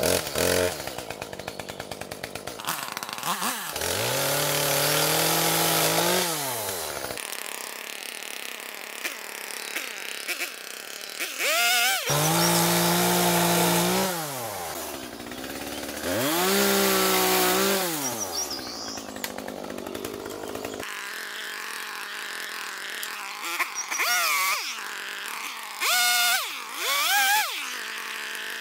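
Chainsaw revving up to full throttle for three long cuts into a fallen tree trunk, dropping back to a lower speed between them, then several short revs near the end.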